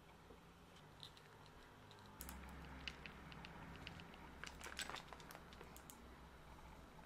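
Faint crinkling and small clicks of a clear plastic bag of keychains being handled, a scatter of them between about two and five and a half seconds in, over quiet room tone.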